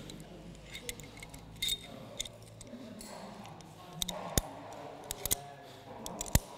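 Metal rope-access hardware clicking and clinking as the climber handles his backup device, carabiners and ascender on the rope: a scatter of irregular sharp clicks, the loudest about four seconds in and near the end.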